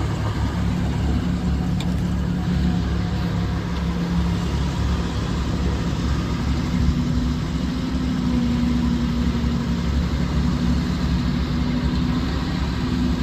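Kubota B21 tractor loader backhoe's 19 HP Kubota diesel engine running steadily, with a low, even engine note.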